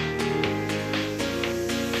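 Background music: sustained chords over a bass line, with a steady beat of about two strokes a second.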